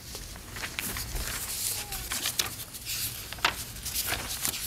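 Sheets of paper rustling and crinkling in irregular short bursts as they are handled and leafed through.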